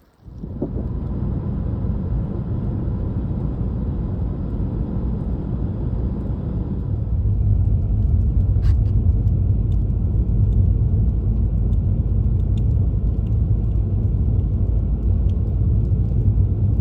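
A motor vehicle driving, with a steady low rumble of engine and road noise that gets a little louder about seven seconds in.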